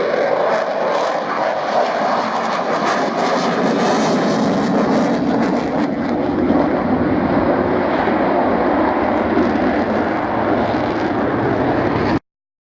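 Steady engine noise from a display aircraft in flight. The sound cuts out abruptly for about a second near the end.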